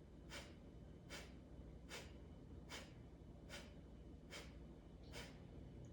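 Faint, short hissing pulses repeating evenly about every 0.8 seconds, seven of them, over a low steady background hum.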